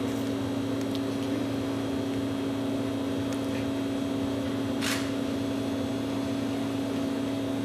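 A steady low hum with a clear, unchanging low tone over a faint hiss, and a brief click about five seconds in.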